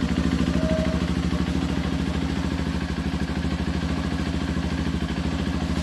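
Honda CRF150L's single-cylinder four-stroke engine idling steadily through an aftermarket racing exhaust, with an even pulsing beat. The owner says it still sounds as it did new from the dealer.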